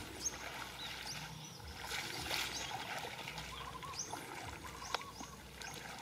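Hands sloshing and squelching in shallow muddy water while groping for fish, with short high bird chirps recurring every second or so and a sharp click about five seconds in.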